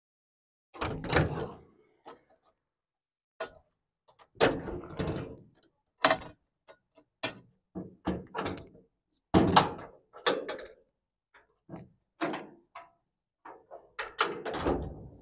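Metal latches and rear doors of a cargo truck's box being unlatched and swung open, then the tailgate latches worked: about a dozen separate clanks, knocks and rattles with silence between them.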